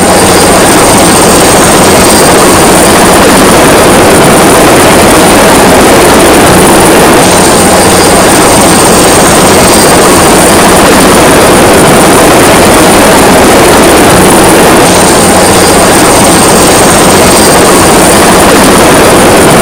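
Helicopter running steadily: dense rotor and engine noise with a thin, high turbine whine over it.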